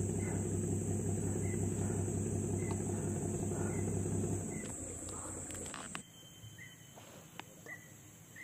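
Riverside outdoor ambience: a steady low hum with overtones fades away about five seconds in. A high steady drone cuts off abruptly about six seconds in. Faint short chirps come roughly once a second throughout.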